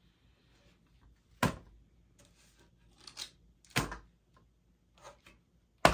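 Handling noise as playing cards and a card box are moved about on a plastic tray: three sharp knocks, about two seconds apart, with softer taps and rustles between.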